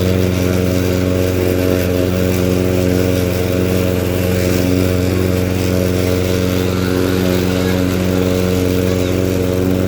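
Small petrol engine of Husqvarna lawn-care equipment running at a steady speed while cutting grass, with an even, unchanging hum.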